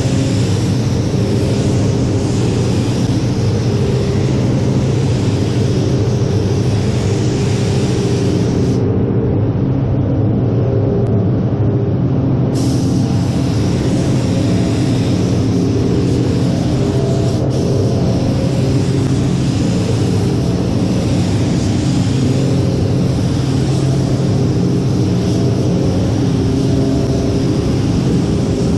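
Automotive paint spray gun hissing as compressed air atomises the paint, over the steady hum of the spray booth's fans. The hiss cuts out for about three seconds near the middle, then starts again.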